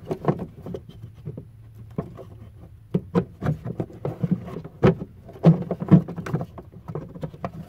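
Hands working a rubber hose onto its fitting under a car: irregular clicks, knocks and rustles of hose and plastic parts being handled, with a steady low hum behind.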